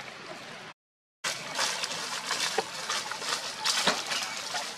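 Dry leaf litter rustling and crackling under a long-tailed macaque's feet as it walks, a steady crackling hiss with sharper crackles. The sound cuts out completely for about half a second about a second in.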